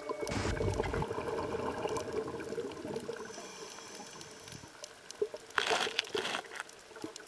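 Underwater sound of a scuba dive recorded in the camera housing: a low watery hiss with scattered small clicks, and a burst of a diver's exhaled regulator bubbles lasting under a second, about five and a half seconds in.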